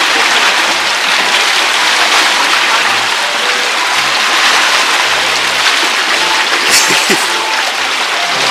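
Seawater washing and rushing over a rocky shore in a steady hiss.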